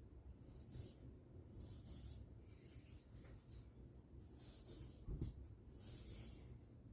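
Faint scuffing and rubbing of wooden ukulele kit parts being handled on the bench, in several short strokes, with a soft knock about five seconds in.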